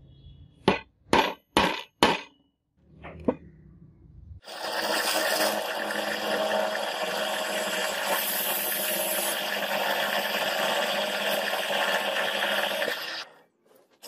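A hammer striking a center punch on a steel block: four sharp metallic taps in quick succession, then one more. A drill press then starts and drills into the steel block, a loud steady whir that cuts off about a second before the end.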